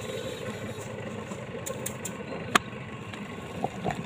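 Hand-packing clay into a pot mould under an iron lever press: a sharp click about two and a half seconds in and a few light knocks near the end as the press lever is brought down, over a steady background hum.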